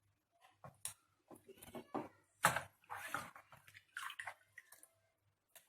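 Faint splashing and dripping of water as chilled, blanched okra is drained in a strainer, in a run of short uneven splashes, the loudest about two and a half seconds in.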